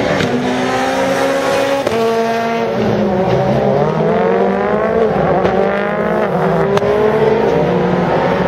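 Rally car engine at full throttle, its pitch climbing and then dropping sharply at each upshift, twice, before climbing again. A single sharp crack comes about two thirds of the way through.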